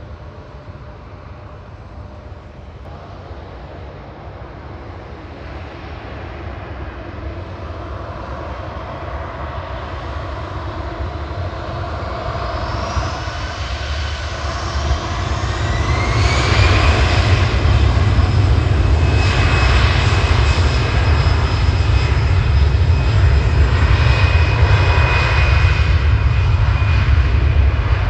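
Airbus A320's twin jet engines growing steadily louder, with a whine that rises in pitch around the middle, then holding a loud, steady rumble.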